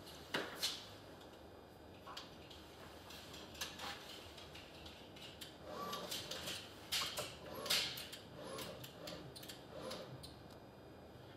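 Scattered clicks, knocks and clanks of a wheelchair and its car-mounted loading crane being handled in a car's boot, the loudest knocks about half a second in and again around seven to eight seconds in.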